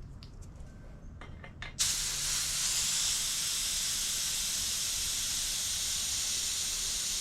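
A few light clicks as an air chuck is fitted, then compressed air hissing steadily into a two-stroke exhaust pipe through its inlet valve, pressurising the pipe for a leak check.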